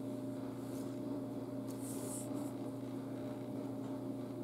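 Handling noise from fingers holding a plush toy's hang tag, with a short rustle about two seconds in, over a steady low hum.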